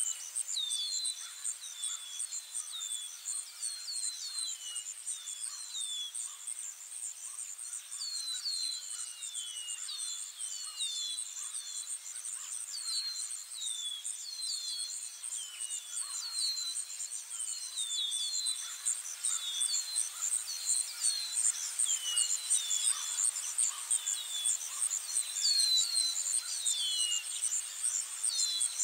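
Outdoor nature ambience: a steady, high insect trill, with short falling chirps repeating in quick clusters throughout.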